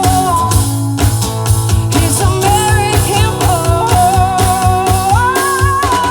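Live band playing a song: a singer holds long, wavering notes over guitar and a steady drum-kit beat, the melody stepping up about five seconds in and dropping back near the end.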